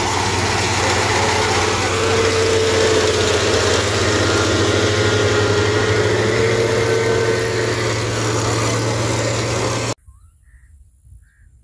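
Kubota SR55 Pro combine harvester running steadily, a loud engine and machinery noise with a low hum and a faint wavering whine, cutting off abruptly near the end.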